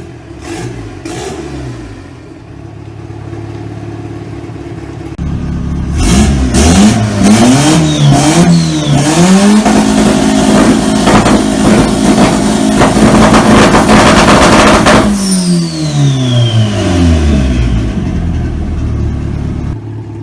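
Turbocharged VW AP four-cylinder engine in a VW Voyage revved from idle: a few quick blips about six seconds in, then held at high revs for about five seconds with rapid popping and crackling from the exhaust. The revs then fall back to idle, with a high whistle dropping in pitch as they come down.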